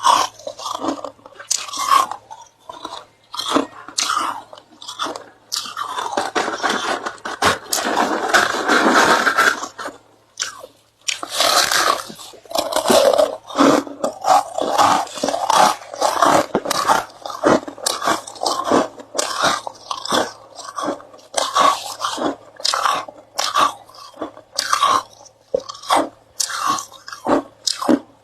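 Ice being bitten and chewed: a long run of sharp, irregular crunches, about one to two a second, with a stretch of unbroken grinding crunch about a quarter of the way in.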